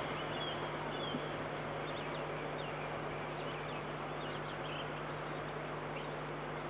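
Small birds chirping, short high calls scattered through, over a steady hiss and a low hum.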